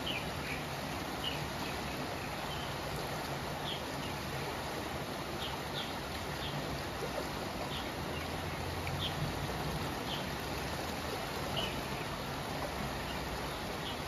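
Steady rushing of a concrete-lined river channel in full flow, water running over a low weir with a small outflow spilling in. Short bird chirps come now and then over the water.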